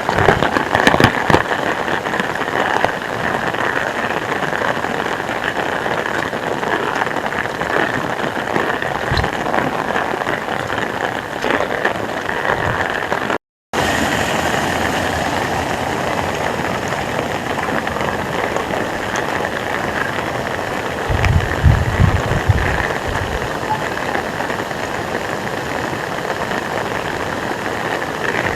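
Heavy rain falling steadily, with a brief break a little before halfway and a low rumble for a couple of seconds about three quarters of the way through.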